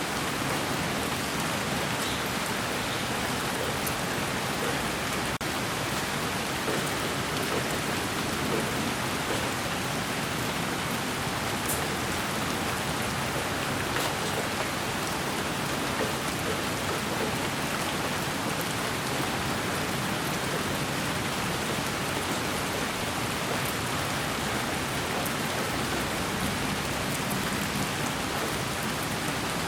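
Steady rain, an even hiss with scattered faint drop ticks, used as a sleep-noise track.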